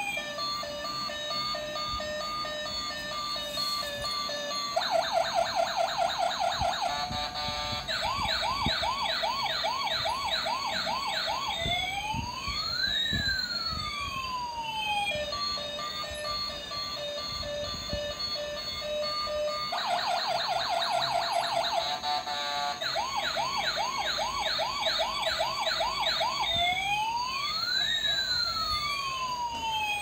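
Battery-operated toy police car's electronic siren cycling through its sound patterns: steady repeated beeps, a fast warble, quick rising yelps, then two long wails sweeping up and down across each other. The sequence starts over about halfway through. A faint low rumble from the toy's motor and wheels on the tile floor runs underneath.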